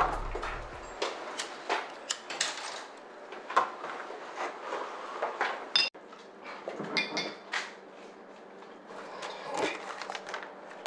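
Scattered light knocks, clicks and clinks of dishes and other household objects being handled in a small room, a dozen or so short separate sounds spread through.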